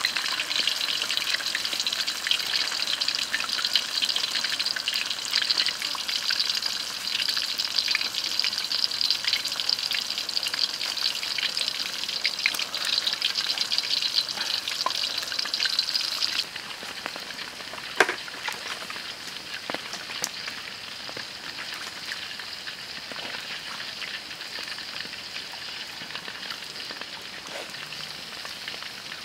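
Pork satay on lemongrass stalks deep-frying in hot oil in a wok: steady, dense sizzling and crackling of bubbling oil. The sizzle drops to a quieter level a little past halfway, with one sharp crack soon after.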